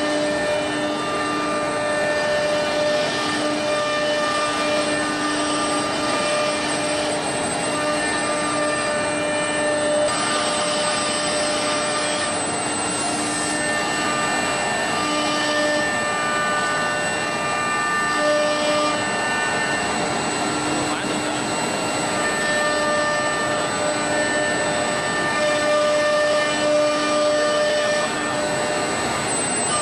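Machinery running steadily: a continuous whirring noise with several steady humming tones that come and go.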